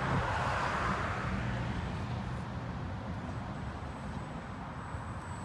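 A radio-controlled scale rock crawler's electric motor and gears running at low speed, over a steady low hum.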